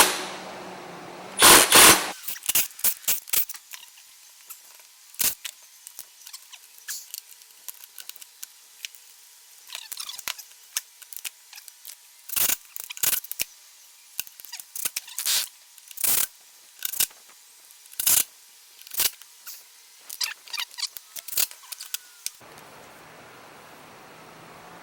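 Hand tools and loose plastic parts clicking and tapping as an Echo ES250 blower/shredder vac is taken apart: a long, irregular series of sharp clicks and small knocks, some in quick clusters.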